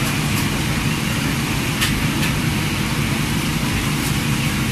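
Cakoi dough sticks deep-frying in a vat of hot oil: a steady sizzle over a constant low rumble, with a couple of faint ticks about two seconds in.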